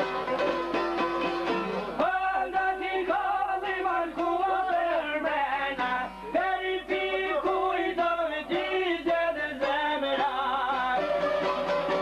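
Albanian folk song: a çifteli, the two-stringed long-necked lute, plucked steadily, with a man singing over it from about two seconds in until about ten seconds in.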